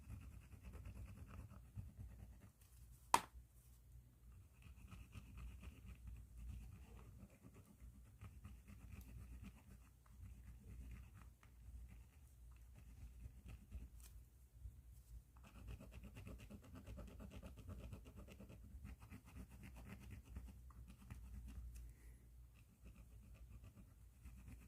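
Pen tip scratching across paper in runs of quick strokes, with a short pause past the middle. A single sharp click comes about three seconds in.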